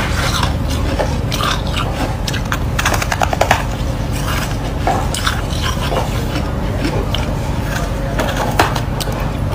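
Crunching of a packed block of white freezer frost being bitten and chewed, with many small crackles and snaps over a steady low hum.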